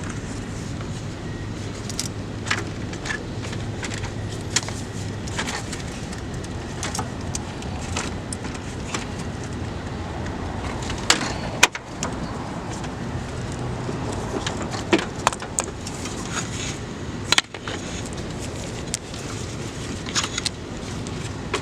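Scattered metallic clicks and clinks of hand tools at work on a car, with a couple of louder knocks, over a steady low hum.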